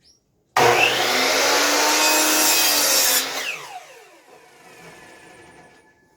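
Electric saw making a 45-degree cut through a board: it comes on suddenly, runs loud for under three seconds, then is switched off and the blade winds down with a falling whine.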